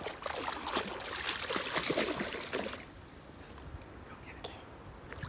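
A border collie splashing and paddling through creek water. The splashing is busy for the first three seconds, then settles to a quieter wash of water.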